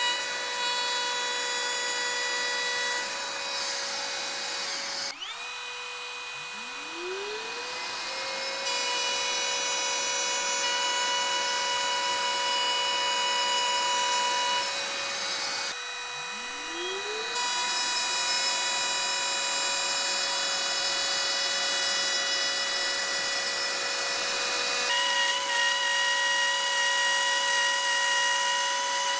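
HiKOKI trim router running with a steady high whine, dust shroud and extractor hose attached. Twice, about five and sixteen seconds in, the whine breaks off and the motor spins back up in a rising whine to full speed.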